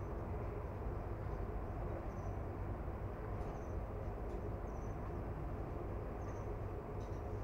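Steady low rumble of background ambience, with faint short high chirps about once a second and a couple of faint clicks.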